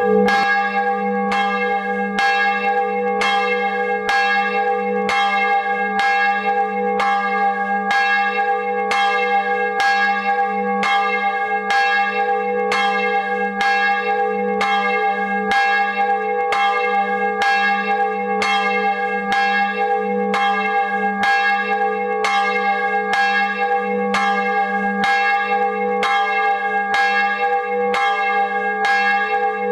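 The tower's only bell, a bronze church bell cast in 1658 and named Marie, tuned to G♯3, swinging and struck by its clapper at an even pace, a little more than once a second, each stroke ringing on into the next.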